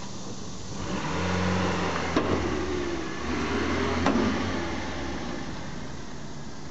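Honda's engine running and pulling, with two sharp clunks from the rear about two seconds apart. The clunks come from a rotted rear subframe, cracked through, flexing against a broken rear strut mount as the clutch takes up.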